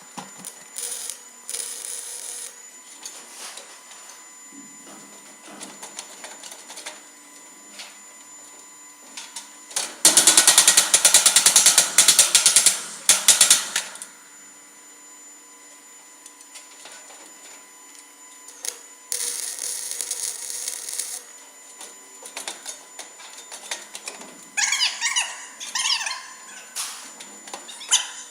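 MIG welder running a bead along a steel floor joint: about ten seconds in there is a loud, fast crackling buzz lasting about four seconds. Quieter metal clatters come before and after it, and a short hiss comes around twenty seconds in.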